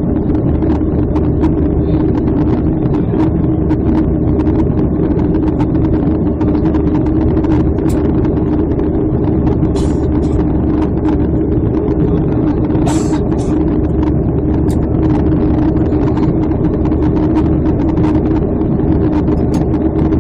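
Steady in-cabin noise of a Boeing 737 airliner climbing after takeoff: the even drone of the jet engines and rushing airflow, heard from a window seat over the wing, with a steady low hum under it. A few brief faint clicks in the middle.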